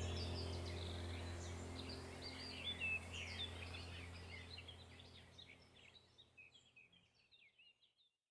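Many small birds chirping over a low steady drone, the whole fading out to silence about five seconds in.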